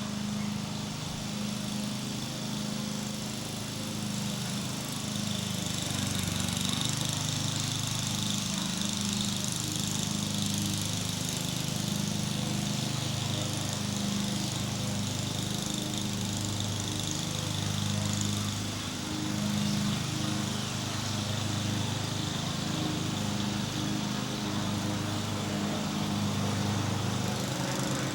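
A small engine running steadily, its note wavering a little from moment to moment.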